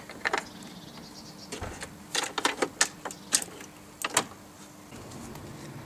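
Clicks, knocks and rattles of a coiled rubber power cable and its metal plug being handled and gathered up, most of them in a cluster in the middle. A faint steady hum runs underneath.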